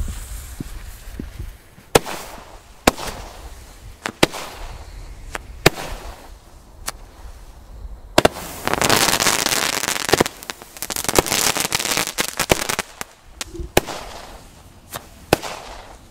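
Small Nico 'Phoenix' firework battery with fanned shots, firing single shots about a second apart. About halfway through comes a few seconds of dense crackling full of sharp pops, then a few more single shots.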